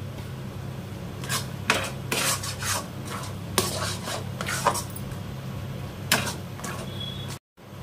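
Metal spatula scraping and stirring thick khoya filling around a stainless steel kadhai: a string of irregular metal scrapes over a steady low hum. The sound cuts out briefly near the end.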